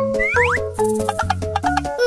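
Upbeat children's background music with a rattling shaker. About a quarter of a second in, there are two quick rising glides like cartoon sound effects.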